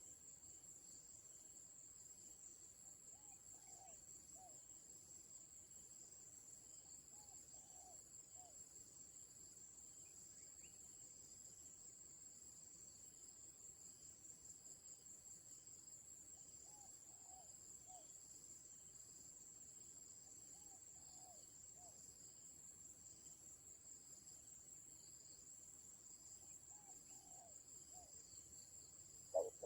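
Faint, steady high-pitched insect trill, with faint distant bird calls in short groups of three or four every few seconds.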